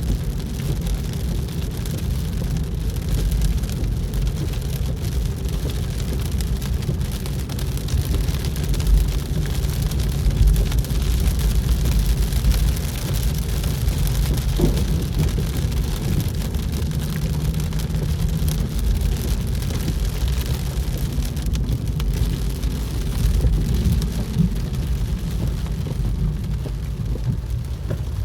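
Steady road noise inside a moving car, a low rumble with rain spattering on the car.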